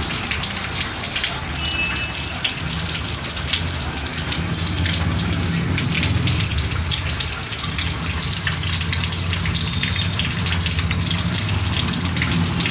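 Water pouring steadily from the outlet of a digital hose-tap water timer, with a low steady hum beneath it: the timer's valve has not shut off after its one-minute run time.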